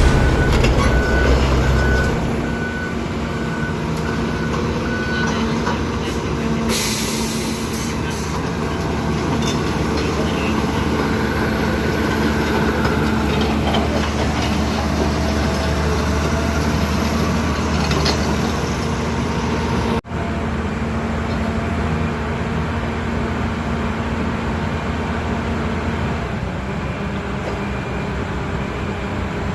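Diesel engine of a Lovol FR220D crawler excavator running steadily under work. There is a few seconds of evenly spaced high beeping at the start and a short hiss about seven seconds in.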